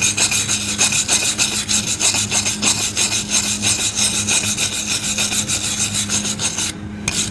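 Handheld wire brush scrubbing a railroad spike in rapid back-and-forth rasping strokes, scouring off the copper-coloured patina left after a vinegar soak; the brushing stops a little before the end.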